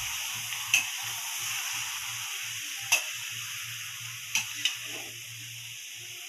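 Chicken pieces and onions sizzling in a metal wok while a metal ladle stirs them, with four sharp clicks as the ladle knocks against the pan. The sizzle slowly fades.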